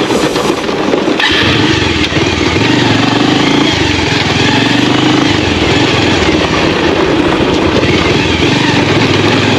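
Bajaj Pulsar 150 single-cylinder engine running as the motorcycle rides over a rough, stony dirt track. Its note gets louder about a second in, then rises and falls with the throttle.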